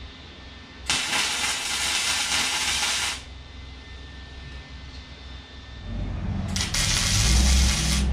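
Arc welding on the steel frame: two steady crackling hisses, the first about a second in and lasting some two seconds, the second starting about six and a half seconds in. A low rumble sets in underneath from about six seconds.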